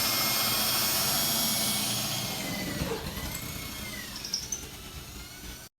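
Power drill running: a high motor whine that wavers in pitch and fades over the last few seconds, then cuts off suddenly near the end.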